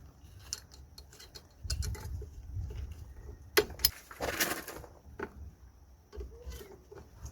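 Small metal clicks and clinks as spring clips are pressed into place on a drum brake shoe assembly, with a louder scraping sound about four seconds in.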